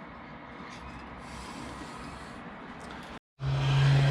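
Rebuilt Nissan TD42T indirect-injection inline-six turbo-diesel idling with a steady low rumble and no sharp diesel knock. About three seconds in, the sound cuts out for a moment. A louder, steady droning hum then takes over.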